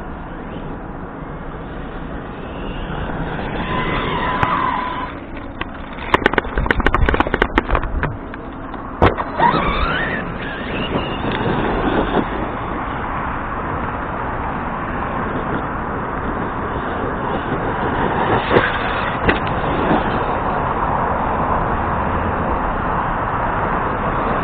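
Arrma Kraton RC monster truck's brushless motor whining as it accelerates, with a rapid run of sharp knocks about six to eight seconds in and a single hard hit around nine seconds, typical of hard landings. After that, a rising motor whine and then steady running with tyre noise, plus a couple more knocks later on.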